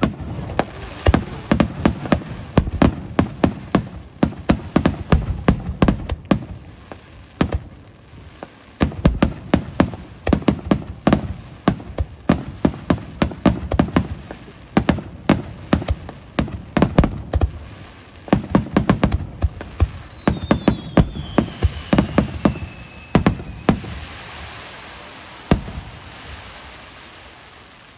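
Fireworks going off in a rapid, dense run of bangs and crackles. A falling whistle comes about twenty seconds in, and the bangs stop a few seconds before the end, leaving a fading hiss.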